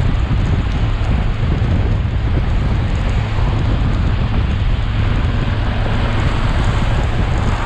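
Steady wind noise on the microphone of a moving motorcycle, with a deep, even rumble from the bike and road underneath.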